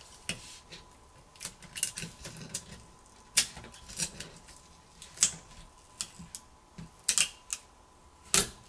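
Small phone parts and tools being handled: irregular sharp clicks and taps, several of them loud.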